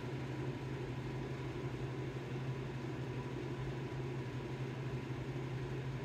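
Steady low electrical hum over a faint even hiss, with no clicks, beeps or other distinct events.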